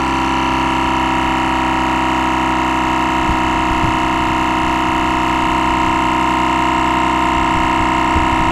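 GSPSCN twin-cylinder 12-volt tire inflator compressor running at a steady, even pitch, loaded as it pumps up a tire.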